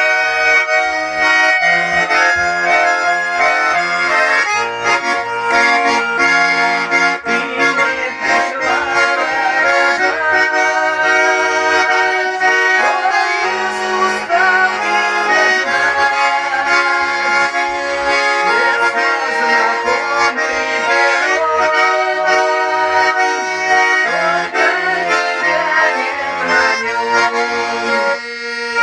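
Russian garmon (button accordion) playing an instrumental passage: a reedy chordal melody over short, rhythmic bass notes.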